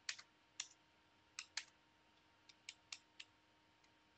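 Computer keyboard keys being typed in short, uneven bursts, about ten separate clicks spread across a few seconds.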